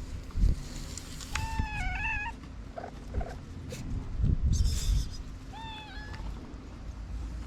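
Cat meowing twice: a wavering call about a second and a half in, and a shorter falling one near the end. Low thumps and rumbling come in between, loudest just after the start and around the middle.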